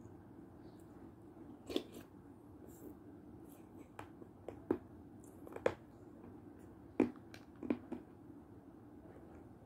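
Close-up eating sounds: about half a dozen sharp, wet mouth smacks and plastic spoon clicks as milk soup is taken from a plastic spoon, over a steady low hum.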